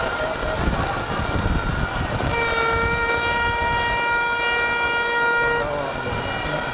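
A horn blows one long, steady note for about three seconds, starting a little over two seconds in. A fainter horn tone sounds before and after it.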